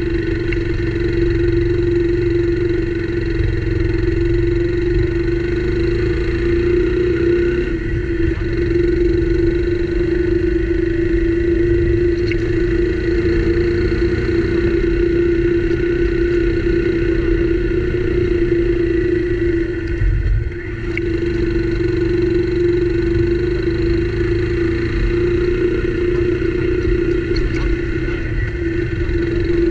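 Motorcycle engine running steadily under way, with a constant hum over low wind and road rumble; the sound briefly dips about two-thirds of the way through.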